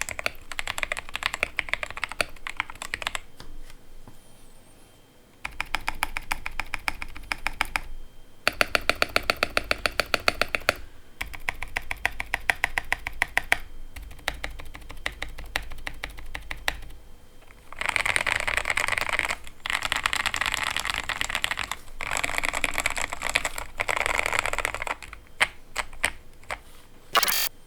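Royal Kludge RK68 mechanical keyboard typed on in bursts with short pauses. It has lubed RK Brown tactile switches on a steel plate, PE foam and tape mod, and PBT XDA keycaps. The densest, loudest run is in the second half, and it ends in a few single keystrokes.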